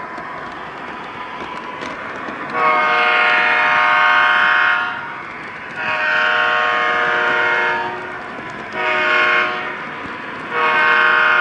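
A 3-rail O scale model diesel locomotive's sound system sounds its horn in the grade-crossing pattern: two long blasts, a short one, then another long one starting near the end. Underneath is the steady running noise of the train on the track.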